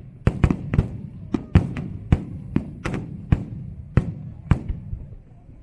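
Aerial fireworks bursting in a rapid, irregular salvo of sharp reports over a low rumble, stopping about four and a half seconds in.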